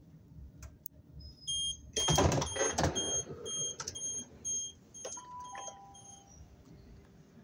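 Class 377 Electrostar train's door warning beeping, about two short high beeps a second, while the automatic doors slide open with a loud rush about two seconds in. The beeps grow fainter and stop near the end.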